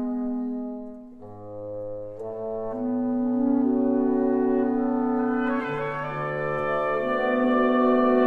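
Reed quintet of oboe, clarinet, saxophone, bass clarinet and bassoon playing long held chords. The opening chord fades about a second in, then the instruments come in one after another on sustained notes, with a low bass line underneath, building to a fuller, louder chord.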